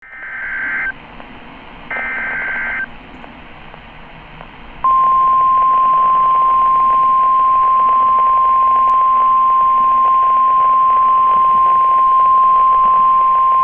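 NOAA Weather Radio emergency alert signal: two short, screechy digital data bursts of the SAME alert header in the opening three seconds. About five seconds in, the single steady 1050 Hz warning alarm tone starts and holds for about nine seconds, over receiver hiss. It announces that a warning broadcast, here a tornado warning, is about to follow.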